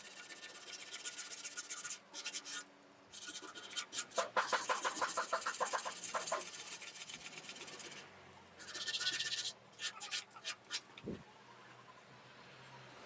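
Rapid back-and-forth scraping strokes, about eight a second, in several bursts with short pauses, loudest about four to six seconds in.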